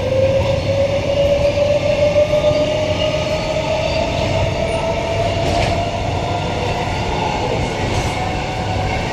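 Queensland Rail EMU electric train with ASEA traction equipment, heard from inside the passenger car while running: a steady rumble of wheels on track under a motor whine that rises slowly in pitch as the train gathers speed.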